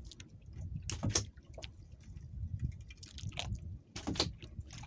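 Water lapping against a small boat's hull, with a steady low rumble and a few brief splashes: about a second in, and twice more near the end.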